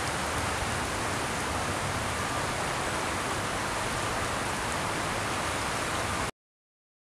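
Steady rushing of water from the flooding. It cuts off abruptly about six seconds in.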